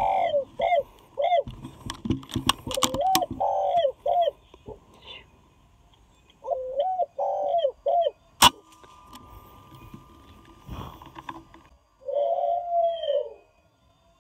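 Spotted dove cooing: four bouts of short rising-and-falling coos. A few sharp clicks come in the first seconds, and one loud sharp click comes about eight seconds in.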